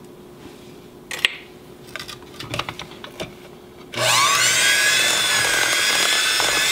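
A few faint clicks, then about four seconds in an electric hand mixer switches on and runs steadily with a whine, its beaters churning thick cookie dough in a glass bowl.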